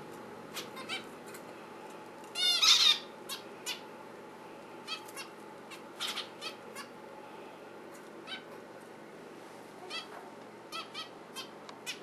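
Caged zebra finches giving short, scattered calls, with one louder, longer call about two and a half seconds in.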